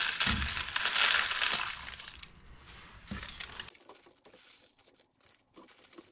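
Dry uncooked rice pouring from a plastic tub onto parchment paper in pastry cases, used as baking beans for blind baking: a rustling hiss loudest in the first second and a half, then a few light clicks and paper rustles.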